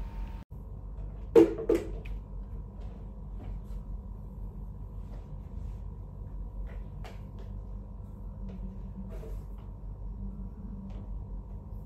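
Two sharp knocks close together about a second and a half in, then faint scattered taps and rustles of bed-making and sweeping a tiled floor with a plastic broom and dustpan, over a steady high hum.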